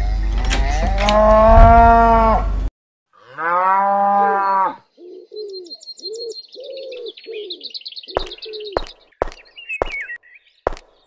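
A cow mooing twice, a long call and then a shorter one. Then a run of short, lower animal calls with birds chirping high above them, followed by a series of sharp clicks.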